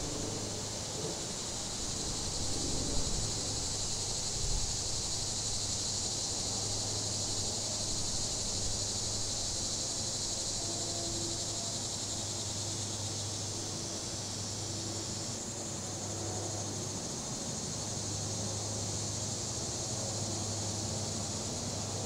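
Cicadas buzzing in a steady, continuous high chorus over the low, steady hum of distant highway traffic, with light wind. A couple of soft low bumps come a few seconds in.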